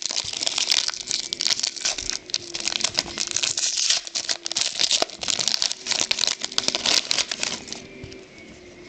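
Trading card packs and cards being handled: crinkling wrapper and rustling cards with dense rapid clicks, dying down near the end.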